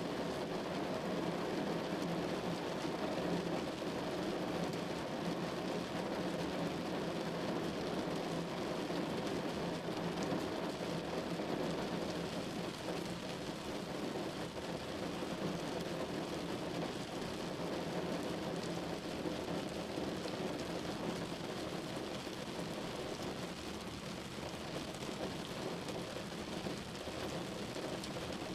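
Steady rain pattering on a window, an even hiss heaviest in the low-middle range.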